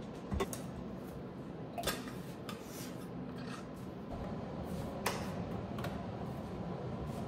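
Small clicks and rubbing of a plastic water bottle being handled and its cap twisted on, a few separate clicks over a steady low hum.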